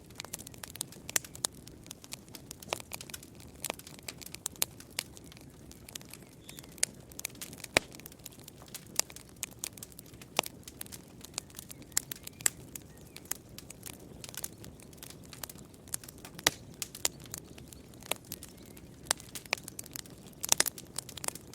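Campfire crackling: irregular sharp pops and snaps of burning wood, several a second, over a steady low rumble of the flames.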